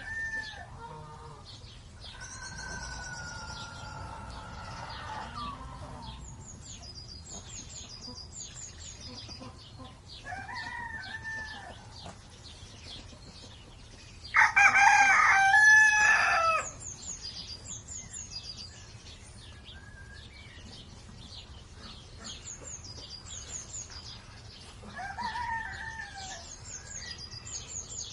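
A rooster crows loudly once, about halfway through, in a single call of about two seconds. Fainter fowl calls come near the start, partway in and near the end, over small birds chirping repeatedly in short high notes.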